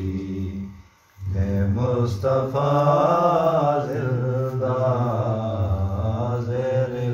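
A man's solo voice reciting a Punjabi noha, a Shia mourning lament, in a slow melodic chant with long held notes. It breaks off for a breath about a second in, then resumes.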